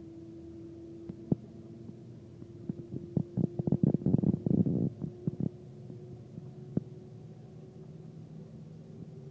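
Cabin hum of the Shanghai Transrapid maglev train in motion: a steady mid-pitched drone that slowly rises in pitch, as the train gathers speed. About a third of the way in comes a flurry of loud clicks and knocks lasting a couple of seconds, with single clicks before and after it.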